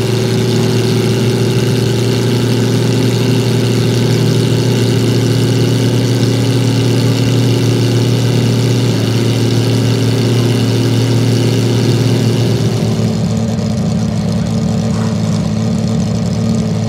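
Porsche 991.2 GT3 R's 4.0-litre flat-six racing engine idling steadily at a fast idle of about 2,200 rpm, warming up after a cold start. About 13 seconds in the sound turns duller, heard from inside the cockpit.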